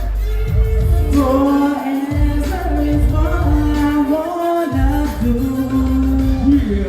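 R&B song with a singer holding long, drawn-out notes with small runs over band backing and a steady bass line.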